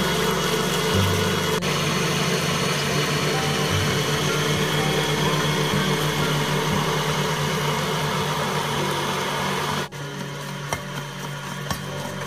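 Electric stand mixer running with its wire whisk beating batter, a steady motor hum. It switches off suddenly about ten seconds in, leaving a few light ticks.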